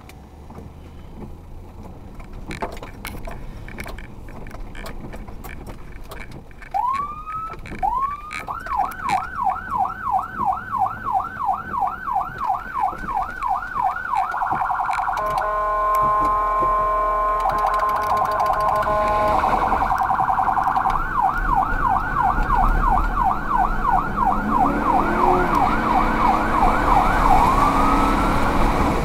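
Electronic emergency siren on a responding vehicle: about a quarter of the way in it winds up in two slow rising wails, then switches to a fast yelp of about three sweeps a second. Midway it changes to a steady blaring horn tone for about four seconds, goes back to the yelp, and starts a rising wail again near the end, over low vehicle rumble.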